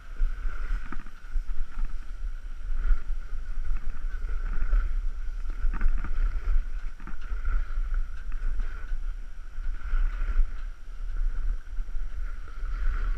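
Wind rumbling on the skier's camera microphone during a downhill run, with skis scraping and hissing on packed snow through the turns. A steady thin whistle sits over the rumble.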